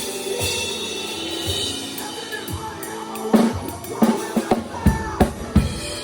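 Drum kit played in a band sound check: for about three seconds sustained tones ring with only light hits, then from about three seconds in a run of hard kick and snare strikes and fills.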